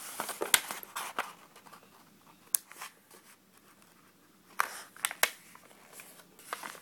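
Origami paper being folded and creased by hand: crisp crinkles and sharp snaps, busiest in the first second and again around five seconds in, with quieter handling between.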